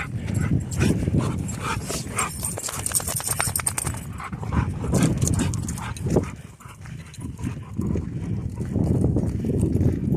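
Footsteps crunching along a dirt and gravel trail, an irregular run of scuffs and clicks, with wind rumbling on the microphone.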